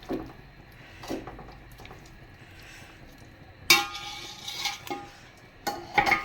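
Metal spoon stirring beef and ground spices in a metal cooking pot: a couple of soft scrapes, then from about halfway loud clanks of the spoon against the pot with a brief metallic ring, and more clanks near the end.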